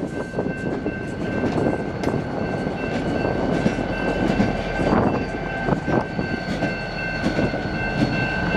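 BNSF diesel locomotive running close by as it slowly shoves a train of covered hopper cars: steady engine drone with wheels clacking over the rail joints. A high, steady ringing tone sits over it throughout.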